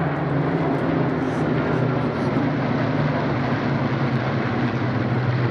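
Piston-engined propeller warbird flying past, a loud steady engine drone whose pitch sinks slowly.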